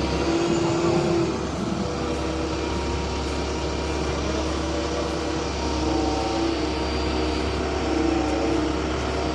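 Road roller's diesel engine running steadily, a continuous even drone.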